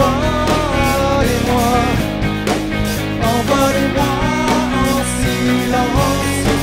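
Rock band playing live: distorted electric guitar, bass guitar and drum kit, with a man singing lead over them.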